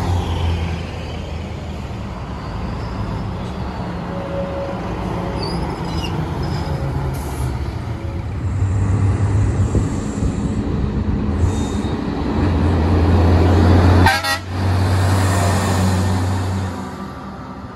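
Heavy diesel trucks driving past one after another: a concrete mixer truck, then dump trucks. Their engines run with a steady low drone that swells as each truck nears and is loudest as a tri-axle dump truck passes close by near the end.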